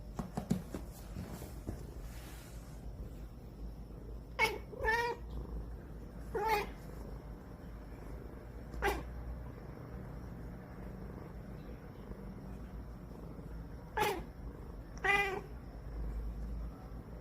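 A domestic cat whining in six short, drawn-out meows, spaced a few seconds apart: sleepy fussing.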